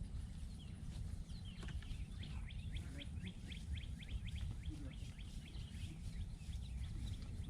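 Small birds chirping in quick runs of short, high notes, busiest a couple of seconds in, over a steady low rumble.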